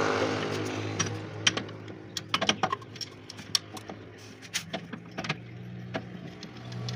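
Irregular metallic clicks and clinks of hand tools and bolts as a geared oil pump assembly is fitted to the underside of a tractor engine block, over a steady low hum.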